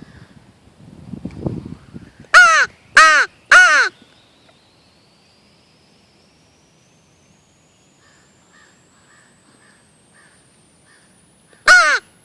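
Hand-blown crow call used as a turkey locator: three loud, harsh caws in quick succession. After a pause of several seconds with faint, distant short calls, two more caws start near the end.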